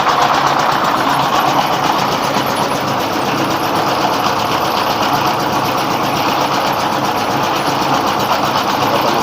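Rice milling machine running steadily, driven by a 24 hp dompeng diesel engine: a constant engine beat under a steady hiss.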